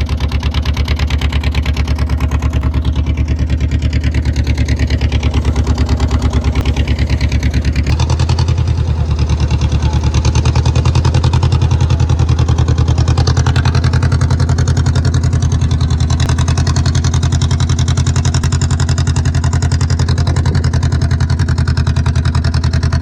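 Motorboat engine running steadily with a fast, even beat; about eight seconds in it deepens and gets a little louder.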